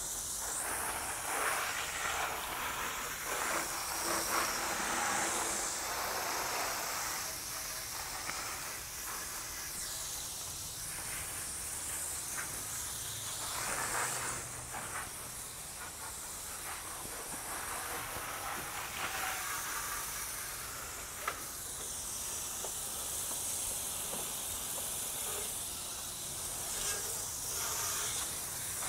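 Water spraying onto a motorcycle as it is rinsed down: a steady hiss that swells and fades as the spray moves over the bike.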